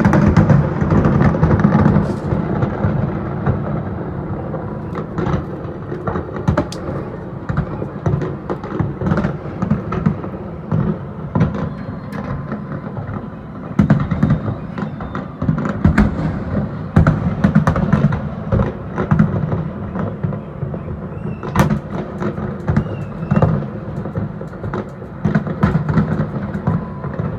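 Fireworks display going off: many sharp bangs and crackles in quick succession over a continuous low rumble of booms. The barrage is heaviest at the start and again about halfway through.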